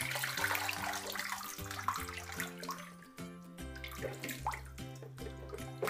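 Water pouring and splashing back into a bathtub as a swamped plastic toy boat is lifted out to empty it, strongest in the first second and dying away, over background music with a steady bass line.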